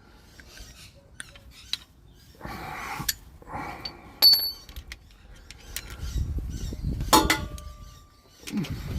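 Hand tools clinking and clanging against steel parts under a vehicle while bolts are loosened: scattered light taps, a sharp ringing clink about four seconds in, and a louder ringing clang a little after seven seconds.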